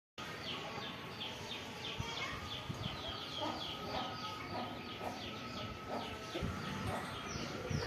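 Chickens in a flock of Aseel fowl calling: a steady run of short, high, falling peeps about three times a second, with lower, short clucks now and then.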